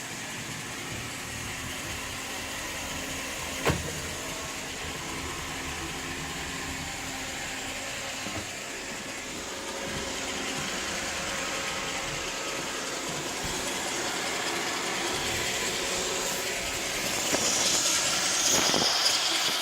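iRobot Roomba 916 robot vacuum running, a steady hum and whir of its vacuum motor and brushes, with one sharp knock about four seconds in. It grows louder and hissier toward the end.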